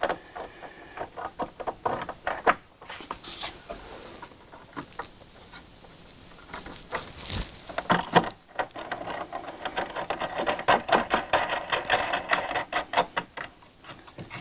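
Small metal clicks and rattles of a nut, flat washer and lock washer being threaded by hand onto a vise mounting bolt under a wooden bench, ending in a fast run of clicks in the last third as the fastener is spun on.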